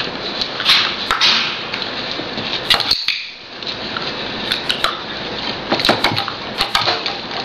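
Irregular sharp clicks and light taps over a steady hiss, with a short lull about three seconds in.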